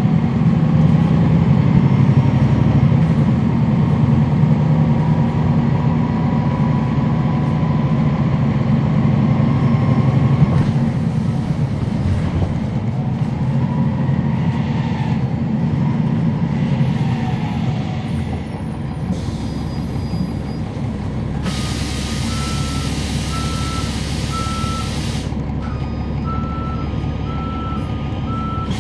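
Cummins ISL9 diesel of a NABI 40-SFW transit bus heard from on board, running strongly for the first ten seconds or so and then easing off. About three-quarters of the way through there is a hiss of air from the bus's air system lasting about four seconds, joined by a repeated warning beep that keeps going after the hiss stops.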